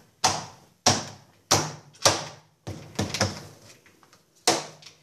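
Plastic frame of an Electrolux washing machine being pressed and snapped into place: about six sharp plastic knocks and clicks at uneven intervals as its tabs seat.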